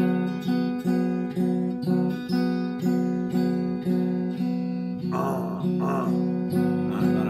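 Electric guitar strumming one chord over and over in a steady rhythm, about two strums a second.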